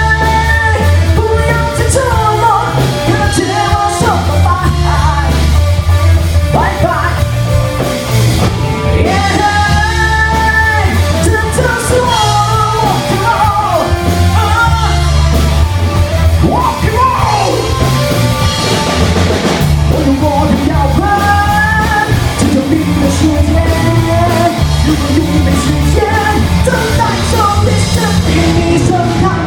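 Rock band playing live, a singer with drum kit and band behind.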